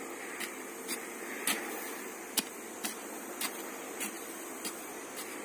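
Hoe blade chopping into hillside soil to dig cassava planting holes: short thuds about twice a second, over a steady background hiss.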